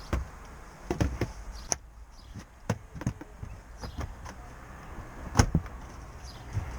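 Irregular knocks, clicks and clunks of objects being handled, the loudest a single thump about five and a half seconds in.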